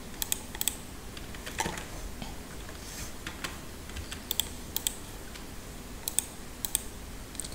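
Scattered clicks from a computer keyboard and mouse, irregularly spaced and often in quick pairs, over a faint steady hiss.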